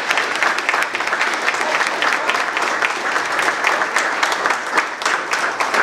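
Audience of graduates and guests applauding: dense, steady clapping.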